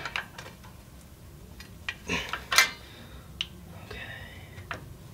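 Scattered light metal clicks and clinks of a hand tool working the shoes and springs of a 1965 Volkswagen Bus rear drum brake as one side is pulled back into place.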